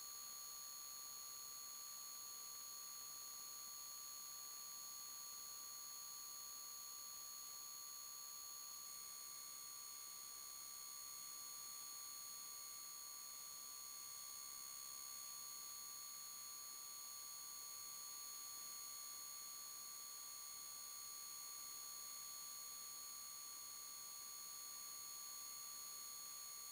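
Faint, steady high-pitched electronic whine made of several fixed tones at once, with no engine, tyre or wind noise beneath it; a couple more tones join about nine seconds in. It sounds like electrical interference on the recording rather than the ride itself.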